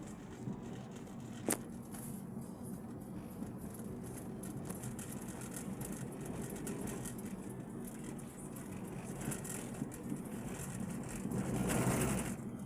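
A car running steadily with an even low hum, a single sharp click about a second and a half in, and a louder noisy swell near the end.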